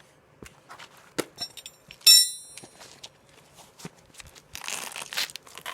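Metal parts and tools being handled during welding setup: scattered knocks and clinks, with one loud ringing metallic clank about two seconds in. Near the end comes a brief rush of noise.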